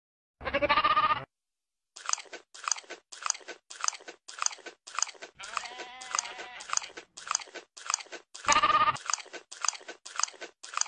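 A goat bleats loudly at the start and again, more briefly, near the end. Between the calls it chews with a steady crunching, about one to two bites a second.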